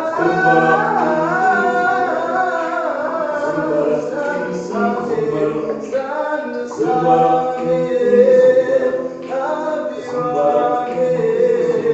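A cappella choir of men's and women's voices singing in parts, with sustained notes and no instruments.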